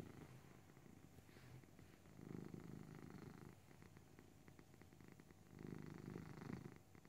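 Tabby cat purring as it is stroked, a low, fine, even pulse that swells louder about every three seconds, once near the start, once about two seconds in and again near the end.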